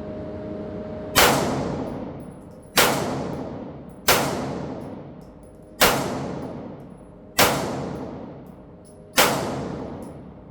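Foxtrot Mike FM9 9mm AR pistol firing six slow single shots, about a second and a half apart, each with a long echoing decay.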